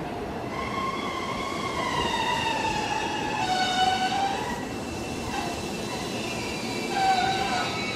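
JR 211 series electric train's wheels squealing on curved track at low speed: several high squeals that waver and slide down in pitch over a steady rail rumble. The squeal swells about halfway through and again near the end.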